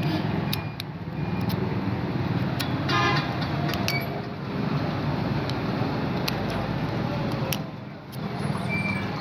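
Busy street traffic noise, with a vehicle horn tooting briefly about three seconds in. A few sharp metallic clicks from the cable padlock being handled are scattered through it.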